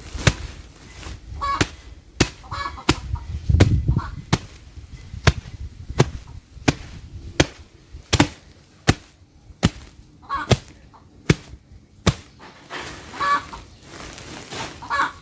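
Repeated strikes of a tool pounding coarse lumps in the briquette materials to crush them fine, a little more than one blow a second. Fowl call a few times among the blows.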